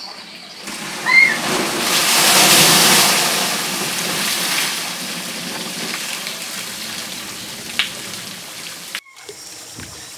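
A large tipping bucket on a water-park slide tower dumping its load: a rush of water crashing onto the tower's canopy and splashing down. It is loudest in the first few seconds, then eases into steady pouring and cuts off suddenly near the end.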